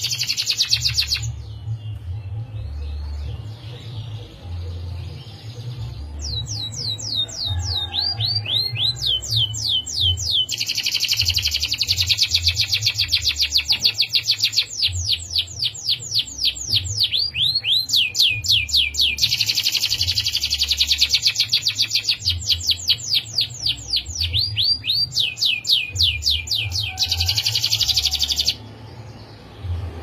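Domestic canary singing long rolling trills: fast strings of repeated sweeping notes, each trill held for several seconds. A short trill comes at the start, then a pause of a few seconds, then nearly continuous trills with brief breaks that stop shortly before the end.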